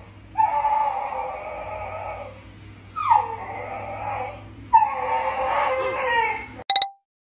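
Small dog whining and howling for attention in three long, drawn-out cries, the third starting high and sliding down. It cuts off abruptly just before the end, followed by a brief pitched tick.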